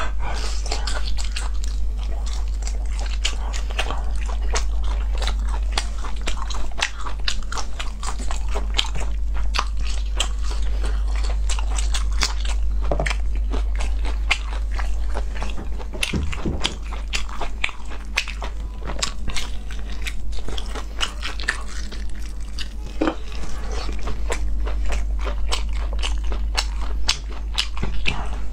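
Close-miked chewing of spicy braised pork intestine: a dense, continuous run of short mouth clicks and bites. A steady low hum runs underneath.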